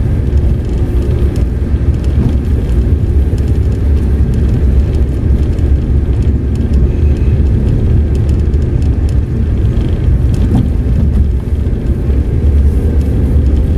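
Steady low rumble of engine and road noise inside the cabin of a Tata Nexon on the move.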